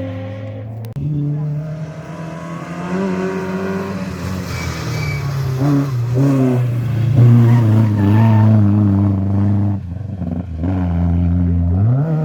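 Historic rally car engine working hard on a stage, its pitch shifting up and down with throttle and gear changes, with two short lifts about ten seconds in and then a sharp rise in revs near the end.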